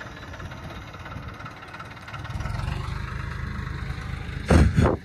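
Kubota tractor's diesel engine running steadily, heard from the driver's seat, growing louder about two seconds in. Near the end comes a short double bump, louder than the engine.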